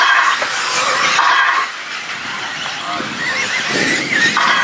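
1/8-scale electric RC buggies racing, their motors whining with a wavering pitch that rises and falls about three seconds in. Short buzzing tones sound at the start, about a second in, and near the end.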